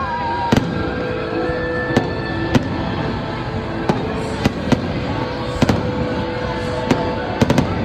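Aerial fireworks going off in sharp, irregular bangs, about a dozen, with a quick cluster of several near the end, over music playing.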